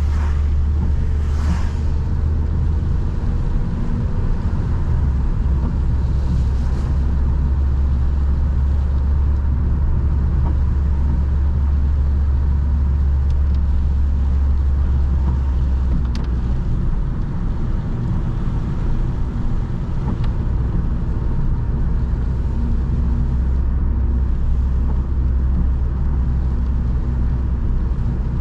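Ford Focus 1.6 petrol four-cylinder being driven: a steady low engine and road rumble that eases slightly partway through.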